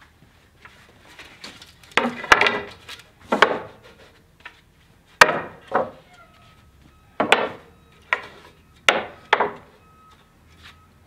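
Thin wooden stickers being laid and tapped into place across a stack of sawn lumber to sticker it for drying: a series of about nine sharp, irregularly spaced wooden clacks.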